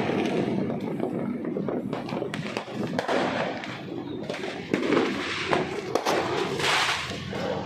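New Year's fireworks going off: a continuous crackle of pops and bangs, with a louder burst near the end.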